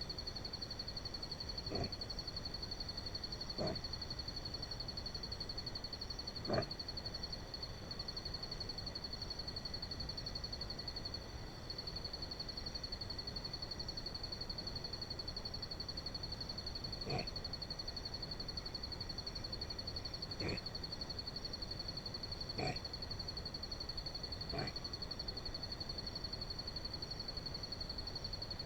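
A zamaño giving short snoring calls, seven in all, a few seconds apart with a long pause in the middle, over a steady high-pitched drone. It makes this call when it senses a person nearby.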